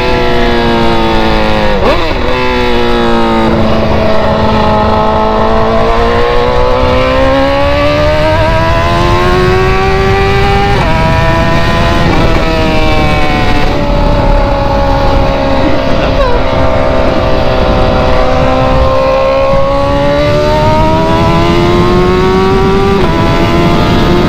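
BMW engine running loud through its exhaust, its pitch sweeping slowly up and down as it accelerates and eases off, with several sudden drops in pitch.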